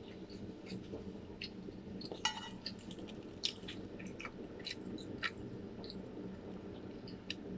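Close-up chewing with the mouth closed: scattered wet mouth clicks and smacks, with one sharper, ringing click about two seconds in, over a steady low room hum.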